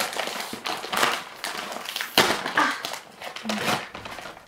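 Foil snack-bag packaging crinkling in a string of sharp, irregular bursts as the bag of potato chips is pulled and torn open.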